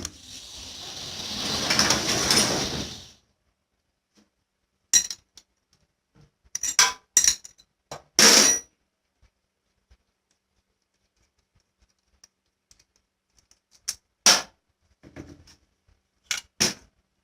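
A hiss that swells for about three seconds, then a scatter of sharp metallic clinks and knocks, singly and in small clusters, as metal tools and parts are handled.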